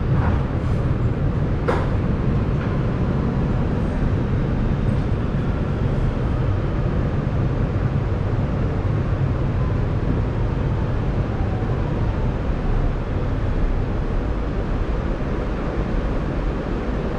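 Inside an R211A subway car: the steady rumble of the train rolling and braking into a station, with a faint whine falling slowly in pitch as it slows to a stop. A single sharp click sounds near the start.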